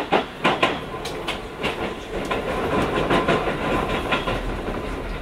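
Interior running sound of a Keio 5000-series electric train. The wheels clack sharply and irregularly over rail joints above a steady rolling rumble.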